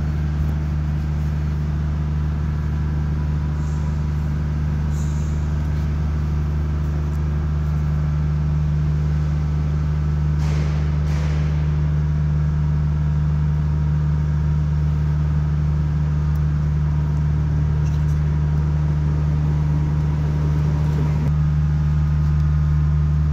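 Steady low machinery hum in a workshop, with a few light metallic clicks about ten to eleven seconds in from handling the brake pads' anti-rattle spring clip.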